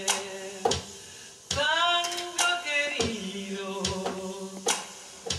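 Live tango music: guitar and keyboard play an instrumental passage of sharply accented notes, each ringing on briefly.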